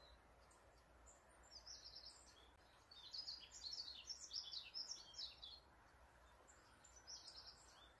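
A songbird singing high, rapid, chattering phrases: a short one about a second and a half in, a longer run in the middle, and a short one near the end, over a faint steady background hiss.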